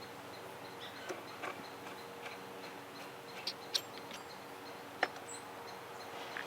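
Small metal parts of a chainsaw clutch clicking and tapping as they are handled and fitted: a few scattered sharp clicks. Underneath runs a faint, regular high ticking about twice a second.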